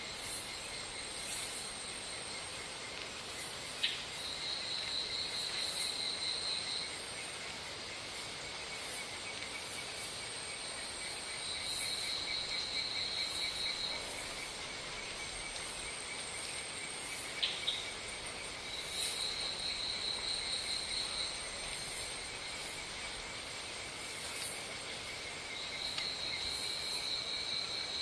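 Insects chirring: a steady, high pulsing trill, with a louder, higher trill that comes in for two or three seconds at a time, five times over. Two short clicks stand out, one about four seconds in and one past the middle.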